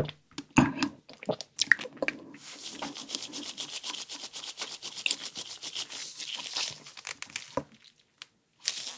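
Close-miked eating sounds: a few sharp wet mouth clicks, then about five seconds of a fast, even crisp rustling scratch that fades near the end.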